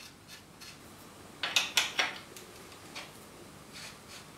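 A 15 mm open-end spanner working a bicycle's rear axle nut, metal clinking on metal: three sharp clinks about a second and a half in, then fainter ticks.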